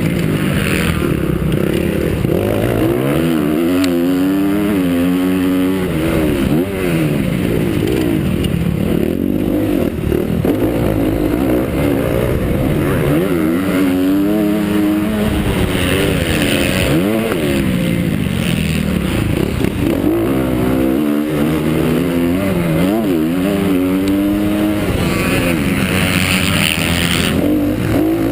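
Honda CRF250F four-stroke single-cylinder motocross bike engine at race pace, revving up and dropping back over and over as the throttle opens and closes through the track.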